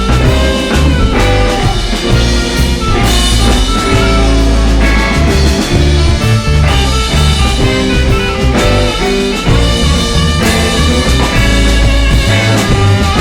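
Instrumental psychedelic blues-rock with electric guitar, bass and drum kit playing loud and steady, without vocals.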